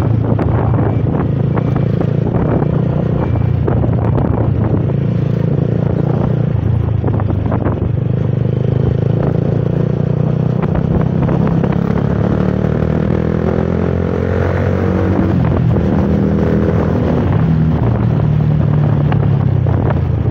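Honda CBR150R's single-cylinder four-stroke engine running while the bike is ridden, heard from the rider's seat, with wind and road noise. Past the middle its pitch rises and falls a few times as the rider speeds up and eases off.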